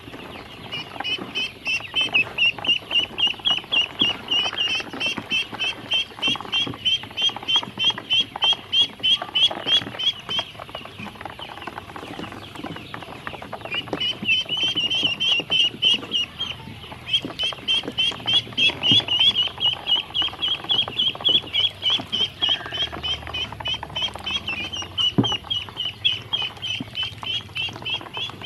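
Ducklings peeping, a fast run of high chirps several times a second with a short break about halfway through, over light tapping as their bills peck feed and dabble in a plastic basin.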